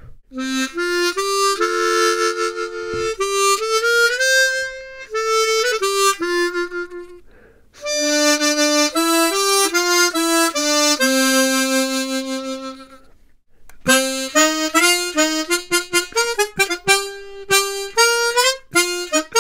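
Hohner ACE 48 twelve-hole chromatic harmonica played solo: a melody in three phrases with short breaks about 7 and 13 seconds in, the last phrase in quick, short notes.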